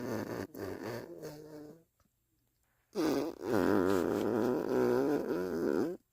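Two farts: a sputtering one that ends about two seconds in, then after a short pause a louder, longer one from about three seconds in, its pitch wavering up and down.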